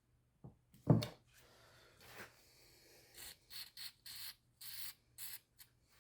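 Hands handling and greasing a small plastic power window switch: a single thump about a second in, then a run of short scratchy rubs and clicks.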